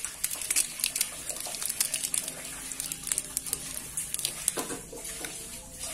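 Thin plastic wrapper crinkling and crackling in the fingers as a new sealed ball bearing is unwrapped, giving a run of small irregular clicks.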